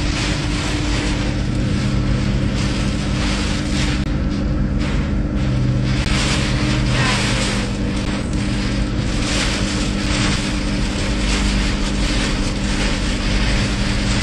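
Vehicle engine running steadily, heard from inside the cabin, under a loud wash of rain and wind noise that swells and eases in gusts.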